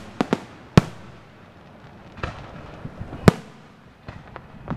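Aerial firework shells bursting: a few sharp bangs in the first second, the loudest single bang about three seconds in, and lighter pops near the end.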